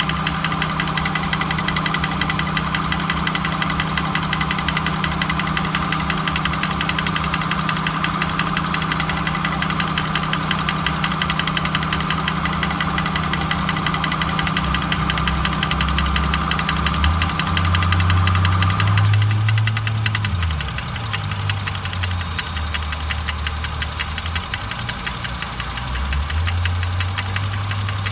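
1999 Honda Accord running with a grinding noise, a steady hum with fast, even ticking. About two-thirds of the way through the sound changes: the hum drops away and a lower drone comes and goes.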